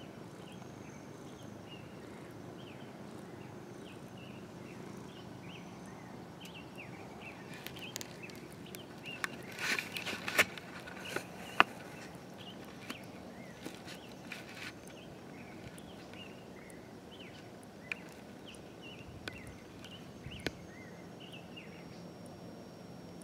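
Outdoor ambience of small birds chirping and twittering, over a steady background noise. A cluster of clicks and rustles comes about eight to twelve seconds in, the sharpest near twelve seconds.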